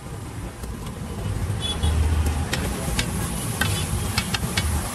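Metal spatula clinking and scraping on a large flat iron tawa as chopped greens and spices fry in oil: a string of sharp clicks in the second half, over a steady low rumble.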